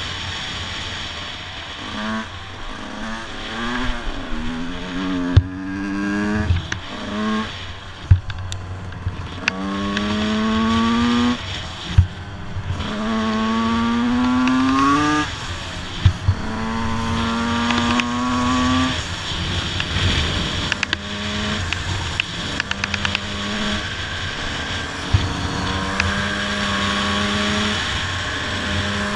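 Two-stroke motocross motorcycle engine accelerating through the gears, its pitch climbing and then dropping at each shift. It settles into a steadier run in the later part, with a few sharp knocks along the way.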